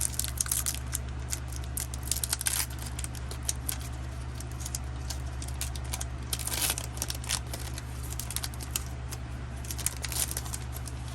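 Foil booster-pack wrapper crinkling and trading cards rustling and clicking as they are handled, in a quick run of small rustles with denser bursts about two, six and a half and ten seconds in.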